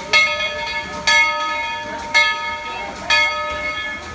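A steam locomotive's bell ringing steadily, about one clang a second, each strike ringing on before the next, the bell rung as the train departs.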